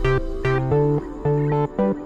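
Background music with a plucked guitar melody over a bass line, the notes changing every quarter second or so.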